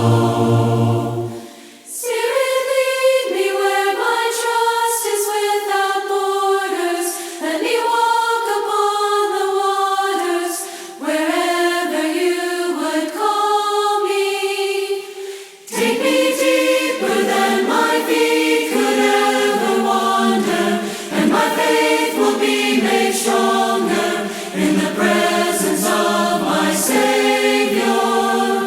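A vocal group singing a worship song a cappella in parts. Higher voices carry the first phrase alone, and lower voices join about halfway through.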